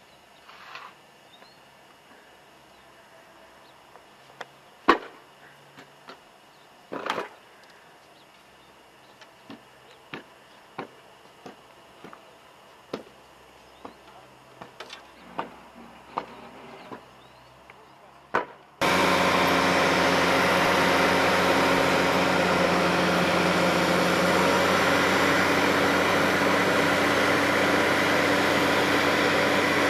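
Scattered sharp knocks over a quiet background. About two-thirds of the way in, the loud, steady rush of a rotary snow blower throwing snow starts abruptly, with its engine droning underneath.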